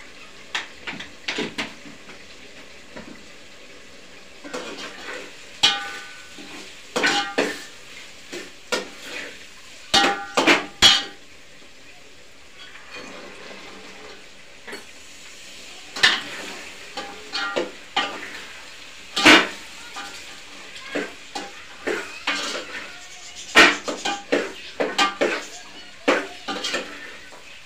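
Metal spoon stirring and scraping vegetables frying in an aluminium pot, with irregular clinks against the pot rim, some of them ringing briefly, and a steel lid clanking on the pot.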